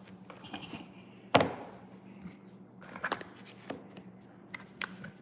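Play-Doh toys and plastic tools knocking and tapping on a tabletop: one loud knock about a second in, then several lighter taps and clicks.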